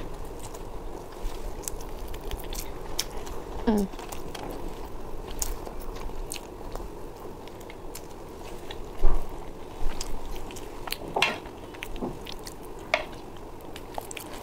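Close-miked chewing and mouth sounds of a person eating chicken biryani, with scattered small clicks throughout and a sharper click about nine seconds in.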